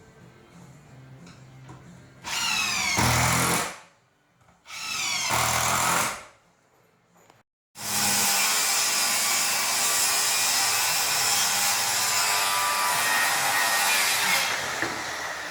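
Power drill running in two short bursts, its motor whine gliding in pitch, then a power tool running steadily for about seven seconds before easing off near the end.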